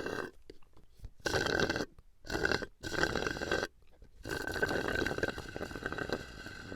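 Slurping through a drinking straw: a series of gurgling sucks with a thin whistle in them, three short ones followed by a longer one of about two seconds.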